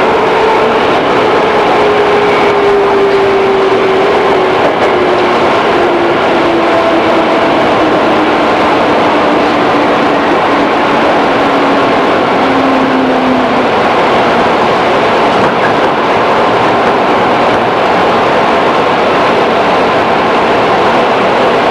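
Running sound recorded inside a 211-series electric multiple unit's motor car: constant rumble of wheels on rail with a whine from the traction motors and gears that falls steadily in pitch over about fourteen seconds as the train slows, then merges into the running noise.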